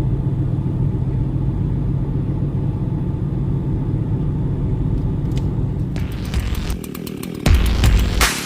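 An engine running steadily, with a low, even drone, for about six seconds. It then turns noisier, with clicks, and loud low thumps come near the end.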